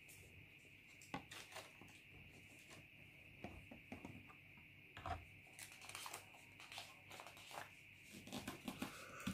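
Paper pattern pieces rustling and crinkling softly as they are handled, folded and laid on the table, in short scattered bursts that become busier in the second half.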